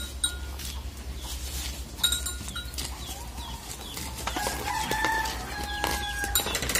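A rooster crowing: one long drawn-out crow starting about four and a half seconds in, with a few short chicken calls before it.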